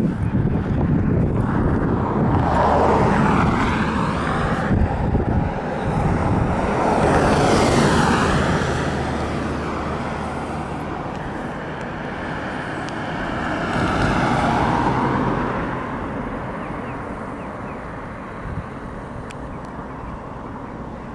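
Cars passing on the road, their tyre and engine noise swelling and fading away three times.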